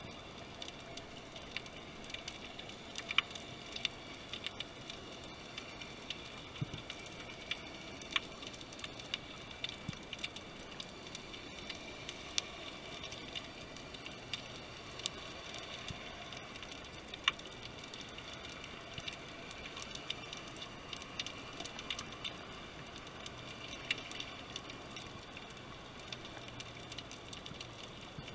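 Underwater ambience picked up by a camera in its housing: a steady low hiss with scattered sharp clicks and crackles.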